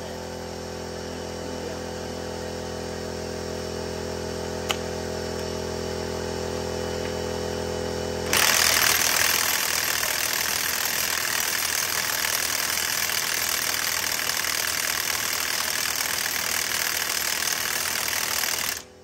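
An air compressor's motor runs with a steady drone that grows slowly louder. About eight seconds in, a 1-inch air impact wrench opens up on a large truck lug nut, a loud hammering for about ten seconds that stops abruptly just before the end.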